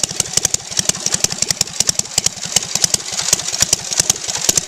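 Home-built air-cooled two-cylinder motorcycle engine, made with old Briggs & Stratton cylinders, running at idle with a rapid, even exhaust beat of about ten pulses a second.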